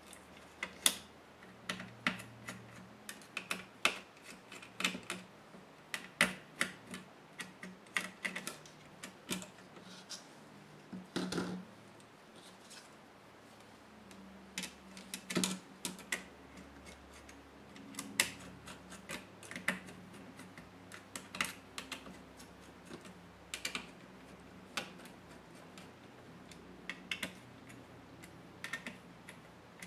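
Toshiba L55-A laptop motherboard and its parts being handled on a tabletop while being taken apart with a small screwdriver: irregular light clicks and taps, with a few sharper knocks.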